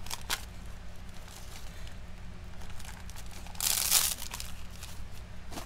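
Crinkling and rustling of decorative mesh rolls being handled, with a few light clicks at the start and a louder rustle about four seconds in.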